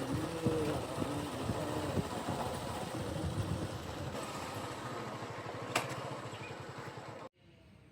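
Heavy diesel engine of the construction machinery running steadily, with a sharp click about six seconds in. The engine sound cuts off abruptly near the end, leaving faint outdoor ambience.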